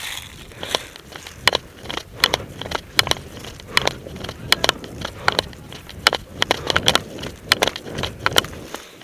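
Footsteps crunching on frozen leaf litter and thin snow at a walking pace, about two steps a second.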